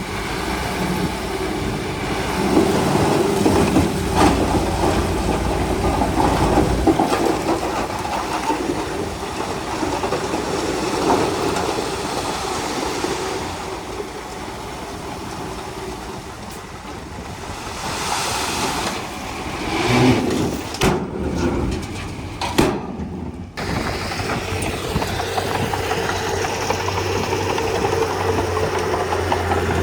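Diesel engine of a Komatsu D31P crawler bulldozer running as it works, its note shifting with load, with a couple of brief dropouts in the sound about three-quarters of the way through.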